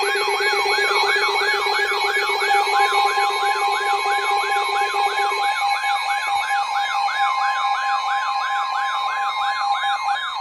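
Electronic emergency alert siren from a weather alert radio, its pitch sweeping up and down about three times a second, layered with steady alert tones. A lower steady tone stops about five and a half seconds in, while a higher steady tone joins about three seconds in.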